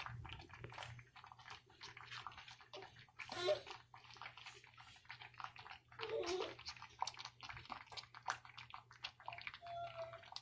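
Thick cornmeal porridge simmering in a pot, its bubbles plopping and popping in many small, irregular pops.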